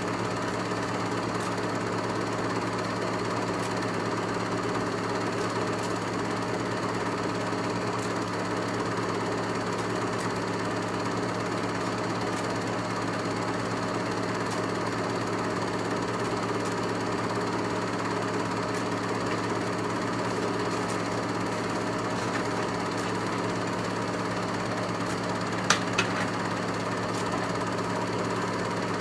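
Film projector running: a steady mechanical whir and clatter over a low hum, with two sharp clicks near the end.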